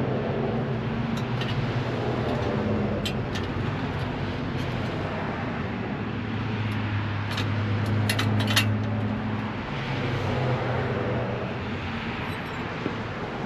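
A steady low mechanical hum, dropping slightly in pitch for a few seconds midway, with a few short, light metallic clicks of bolts and hand tools as a bracket is fitted, most of them grouped between about 7 and 9 seconds in.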